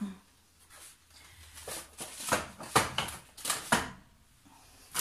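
Rustling and crinkling of a plastic carrier bag and grocery packaging being handled, in a run of short bursts over about two seconds in the middle.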